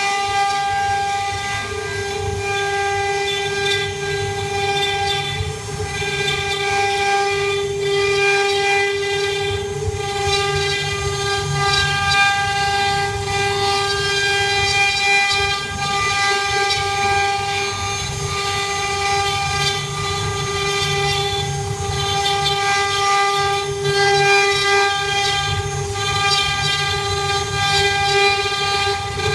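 CNC router spindle running at a steady high whine while carving wood, over a rough low rumble from the machine and the cut.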